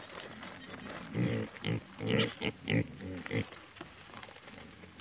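Wild boar grunting and squealing in a quick run of about seven short calls, packed between one and three and a half seconds in and loudest a little after two seconds: a commotion in the sounder at feeding time.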